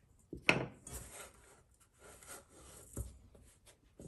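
Hands working a sticky rye bread dough in a metal mixing bowl: rubbing and scraping sounds, with the loudest scrape about half a second in and a sharp knock against the bowl about three seconds in.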